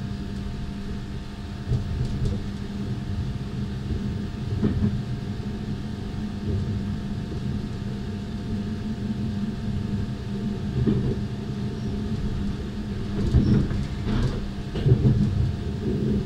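A passenger train running, heard from inside the carriage: a steady low rumble of wheels on the rails with a steady hum, and a few louder knocks here and there.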